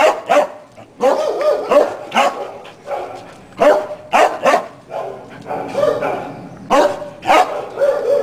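Skye terrier barking over and over, about two barks a second in uneven runs, a few barks drawn out and bending in pitch.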